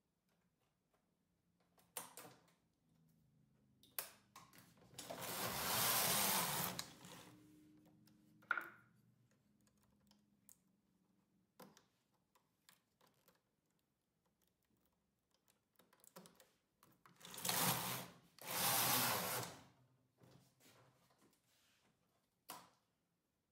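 Midgauge knitting machine carriage slid across the needle bed, a rushing clatter of needles about 5 seconds in and two more passes in quick succession near 17 to 20 seconds, with scattered sharp clicks of the machine being handled in between.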